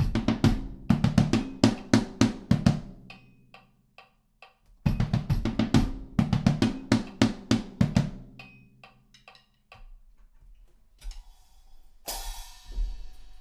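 Drums playing a short call phrase in triplets, twice: each time a fast run of sharp hits that rings out and dies away. A short noisy burst comes near the end.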